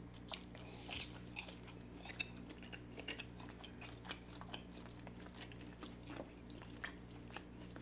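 Close-up chewing of crispy Popeyes fried chicken: faint, irregular crunches and small wet mouth clicks, over a low steady hum.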